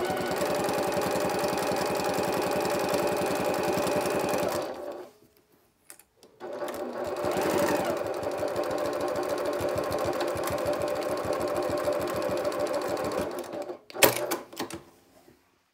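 Domestic sewing machine stitching a narrow topstitch along a pleat in cotton fabric. It runs steadily for about four and a half seconds, stops for a moment, then runs again for about seven seconds before stopping. A sharp click follows near the end.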